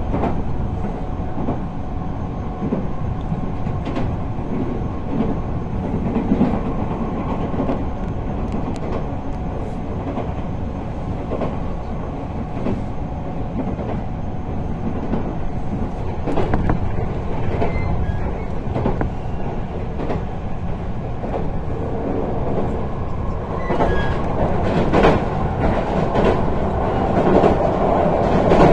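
Electric multiple-unit local train running at speed, heard from inside the passenger car: a steady rolling rumble with scattered clacks of the wheels over rail joints. Near the end the sound grows louder and brighter as the train runs onto a steel truss bridge.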